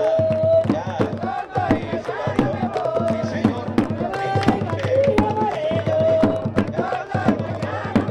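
Tamborito music: Panamanian folk drums keeping a quick, steady beat under a melody line of long held notes that slide in pitch.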